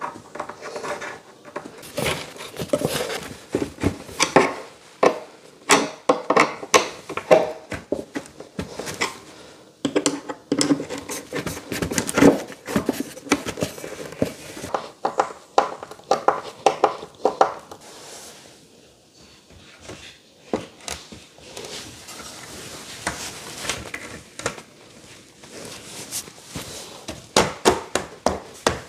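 Clicks, clinks and knocks of flat-pack furniture assembly: small metal cam-lock fittings handled and turned with a screwdriver, and particleboard panels knocked and set into place. The knocking thins out for a few seconds past the middle and picks up again in a quick run of clicks near the end.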